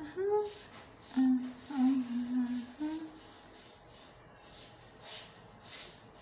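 A man's voice humming a few held, wordless notes for about three seconds, followed by several short breathy puffs of air.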